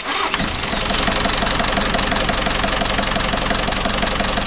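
Van engine idling steadily, with a regular, even pulse.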